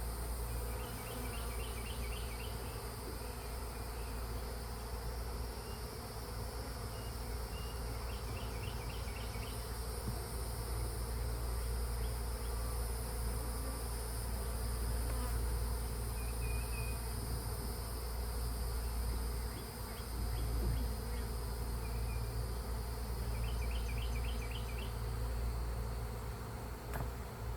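Honeybees buzzing around an open hive, a steady hum. Short chirps break through a few times.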